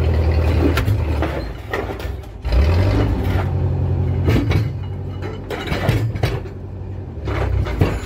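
Foley Belsaw sawmill running as a log feeds through on the carriage: a steady low drone from the mill's power unit, with rattles and knocks from the carriage. A little over two seconds in, the drone dips briefly, then picks back up.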